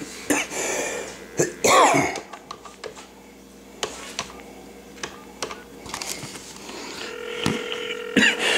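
A phone call being placed on speaker: scattered taps and short clicks, then a steady tone for about a second near the end as the call goes through.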